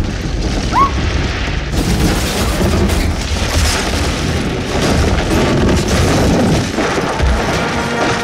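Film sound effects of a building collapsing: booming crashes over a continuous low rumble of falling debris.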